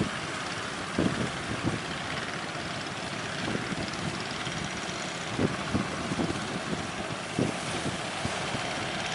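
Steady wind and sea noise, with gusts buffeting the microphone in several short low thumps.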